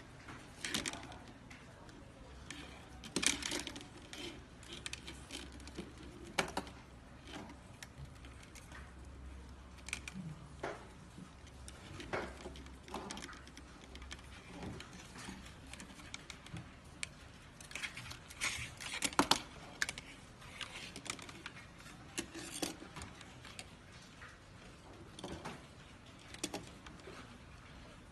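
Irregular small clicks, taps and rustles as the plastic frame and wires of a Holy Stone U818 drone are handled, with a faint low hum in the first half.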